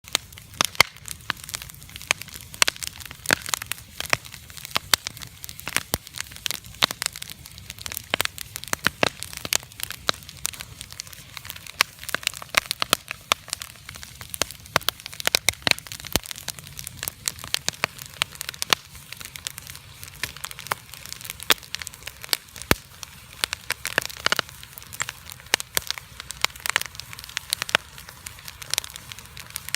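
Wood campfire crackling and popping: an irregular run of sharp snaps, several a second, over a faint hiss of burning.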